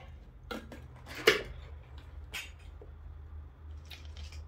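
Plastic snack jar being twisted open and handled: a few scattered sharp clicks and knocks of the lid, the loudest about a second in.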